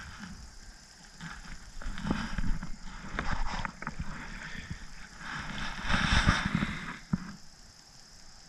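Kayak paddle strokes splashing in the water, in two spells about two and six seconds in, with a few sharp knocks among them.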